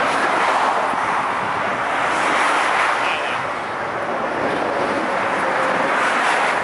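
Steady rushing noise of road traffic passing on the bridge.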